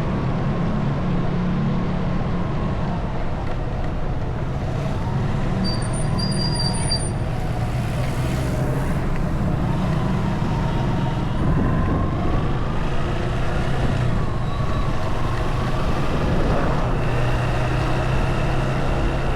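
Motorcycle engine running on the move, its pitch slowly rising and falling with the throttle, over steady wind and road noise. A brief high tone sounds about six seconds in.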